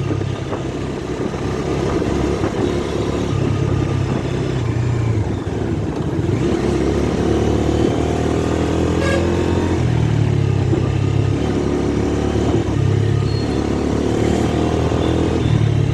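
Bajaj Dominar 250's single-cylinder engine running under way, its pitch rising twice as it pulls through the revs, over a steady rush of wind and road noise.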